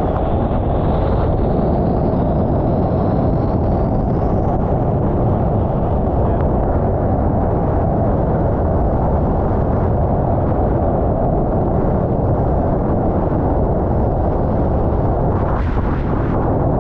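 Steady, loud wind buffeting the microphone of a camera mounted on a Formula 18 catamaran sailing at speed, with water rushing along the hull.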